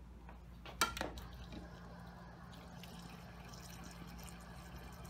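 Refrigerator door water dispenser running water into a glass of jackfruit pieces, a steady trickle over a low hum. There is a sharp click a little under a second in.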